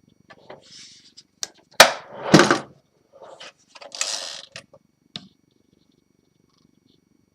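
Irregular handling noises: a few knocks and clicks and a couple of short rustling bursts. A sharp click about two seconds in is the loudest. A low steady hum runs underneath.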